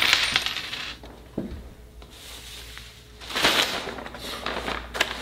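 Paper rustling and crinkling in two bursts, the second and longer one as a paper fast-food bag is opened, with a single click between them.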